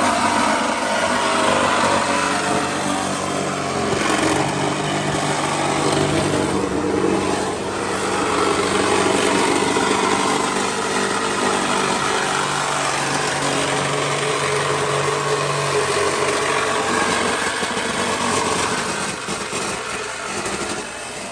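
Power tool running steadily while cutting through a bar in a car's body; it starts abruptly and drops slightly in level near the end.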